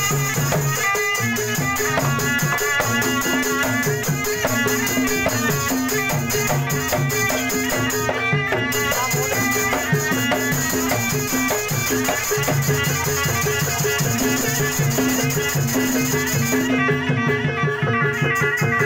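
Barongan folk music: a slompret (Javanese shawm with a horn bell) playing a loud, reedy melody over fast kendang drumming and a steady high rattle. The rattle drops out briefly about eight seconds in and again near the end.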